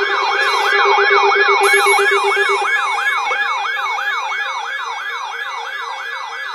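Electronic yelp siren: a fast, repeating rise-and-fall wail, about three sweeps a second, slowly fading. A steady lower tone sounds under it for the first couple of seconds.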